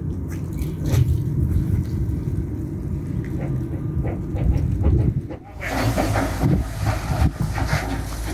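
Wind buffeting the microphone, a low, uneven rumble. About five and a half seconds in, it changes suddenly to a brighter, hissing outdoor noise with a few light clicks.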